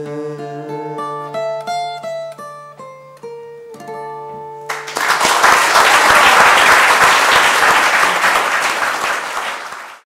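Acoustic guitar playing the closing notes of a song: a slow run of single plucked notes over a held low bass note. About five seconds in, audience applause breaks out, louder than the guitar, and cuts off just before the end.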